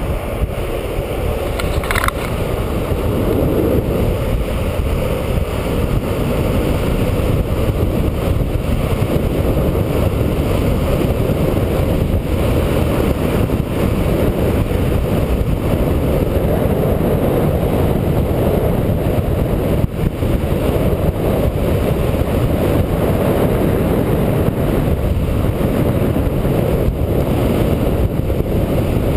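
Longboard on Plasma B+ 78a 69 mm urethane wheels rolling fast downhill on asphalt: a steady, dense rumble of wheels on the road mixed with wind on the microphone. A brief high-pitched sound cuts in about two seconds in.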